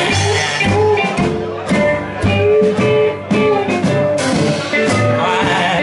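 Live rockabilly band playing an instrumental passage: electric guitar lines over upright bass, drum kit and strummed acoustic guitar, with a steady beat.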